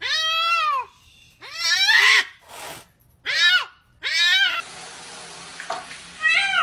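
Tabby cat meowing over and over, about one meow a second, each one rising then falling in pitch. After about five meows a steady faint hiss comes in, and one last, shorter meow comes near the end.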